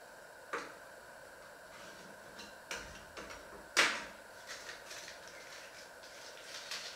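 Irregular knocks and clinks of kitchen utensils on a wooden cutting board and plates, with the loudest knock about four seconds in.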